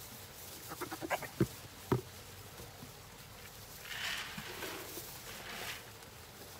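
A goat gives a short, wavering bleat, then come two sharp knocks. Feed then pours from a plastic bucket into a rubber tire feeder as a rushing hiss lasting nearly two seconds.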